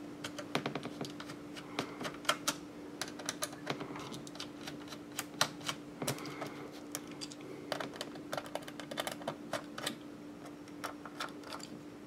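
Small Phillips screwdriver backing out the screws of a Dell Inspiron 1525's plastic bottom access panel: irregular light clicks and ticks of the tip and screws, several a second at times. A faint steady hum runs underneath.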